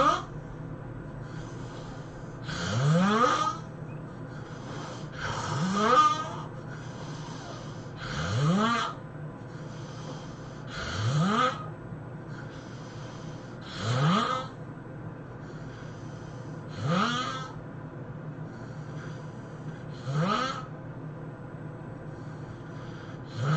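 A sleeping person snoring, one snore about every three seconds, eight in all. Each snore rises in pitch, with a softer breathy exhale between.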